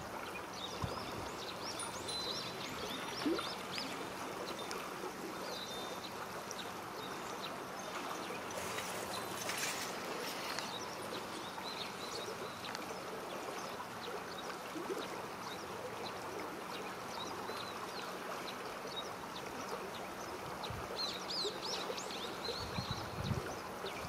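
River water running steadily, a continuous rushing hiss, with a brief louder swell about nine to ten seconds in.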